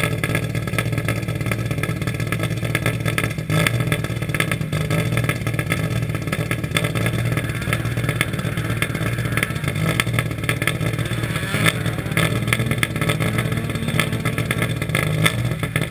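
Rally car engine running steadily, a constant low drone with dense crackle over it.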